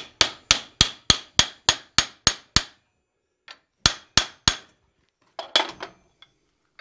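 Hand-hammer blows ringing on a steel rivet header used to round the hot ball end of a forged rope cleat held in a vise: a steady run of about nine strikes at roughly three a second, a short pause, then three more. Near the end a brief clatter of metal.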